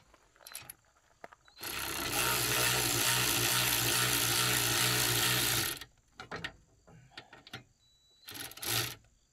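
A handheld power tool's motor runs steadily for about four seconds and then again briefly near the end, running in the bolts of the bumper's chassis-mount plate stack.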